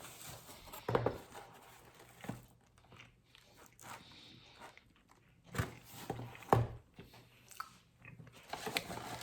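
Someone chewing a lactation cookie made with oats and chocolate, with irregular short crunches and mouth sounds. The loudest crunch comes about six and a half seconds in.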